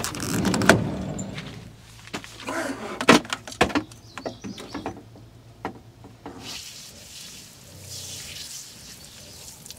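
A van's side door is unlatched and pulled open with a clunk at the start, followed by a few knocks and clicks. From about six and a half seconds in, water sprays steadily from a hose as a rinse.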